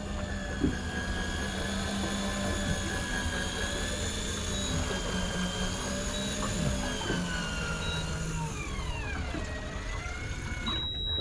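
Electric fishing reel winding in line with a motor whine that wavers slightly, then falls in pitch and stops abruptly near the end, with a few short high beeps along the way.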